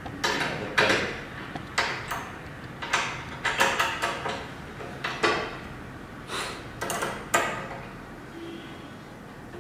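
Metal faucet mounting parts clicking and knocking against a glass countertop as they are handled and fitted, about a dozen irregular sharp taps that stop about seven seconds in.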